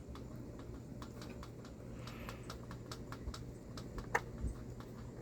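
Screwdriver driving a screw into a tapped hole: faint, irregular small clicks and scrapes of the tool and threads, with one sharper click about four seconds in, over a steady low hum.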